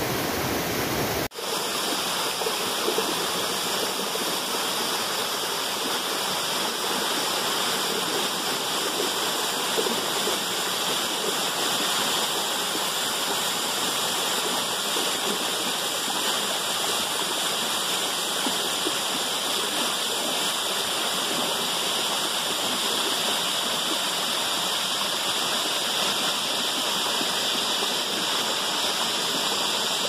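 Waterfall water rushing and splashing steadily, with a short break about a second in.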